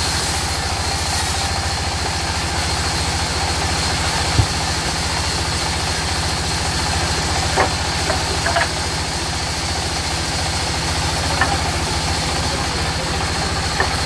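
Sawmill band saw running steadily and cutting through a mahogany log, over the constant low, pulsing drone of its drive engine. A few short knocks and clicks stand out now and then.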